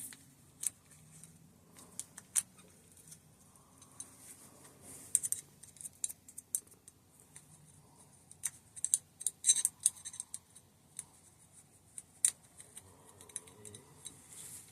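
Small metal clicks, ticks and light scrapes, irregular and scattered, as a seal tool works the seals out of a Hope hydraulic disc-brake caliper.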